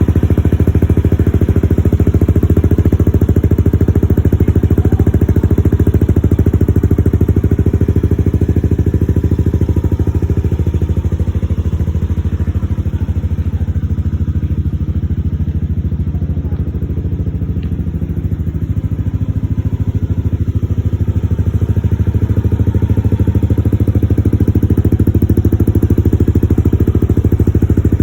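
Yamaha Aerox 155 scooter's single-cylinder four-stroke engine running steadily through a JVT V3 aftermarket exhaust pipe, without revving. It gets a little quieter for a while in the middle.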